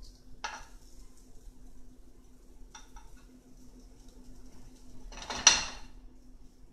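Cookware and utensils clattering in a kitchen while pancakes are cooked. There is a light clink about half a second in and a few soft clicks around three seconds. About five and a half seconds in comes a louder metallic clatter with a brief ring. A steady low hum runs underneath.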